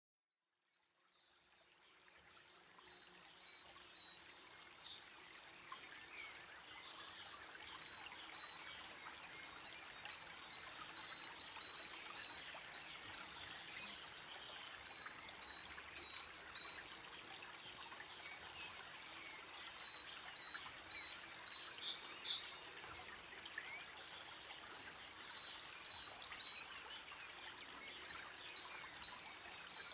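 Birds chirping in quick repeated runs of short high notes, with a thin steady high whistle, over a soft steady hiss like running water; it fades in over the first couple of seconds.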